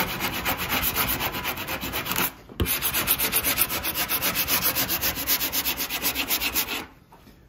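Hand sanding block rubbed in quick, even back-and-forth strokes over the nose of an epoxy-and-carbon windsurf board, cutting a shallow V into the damaged skin for new fibreglass. The strokes break off briefly about two and a half seconds in and stop near the end.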